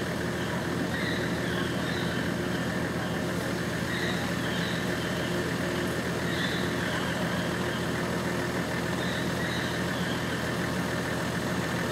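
A motor-vehicle engine idling steadily, with short high chirps recurring every second or two.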